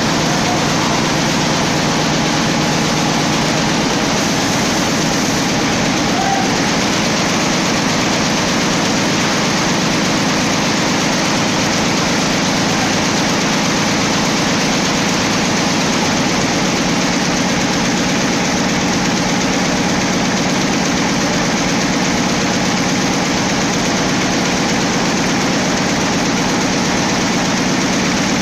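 Schiffli embroidery machine running at speed, its long row of needles stitching in a fast, even mechanical clatter that holds steady throughout.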